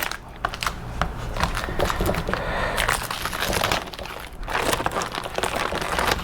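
Packaging crinkling and rustling as the side window deflectors are pulled out of it, with scattered clicks and knocks.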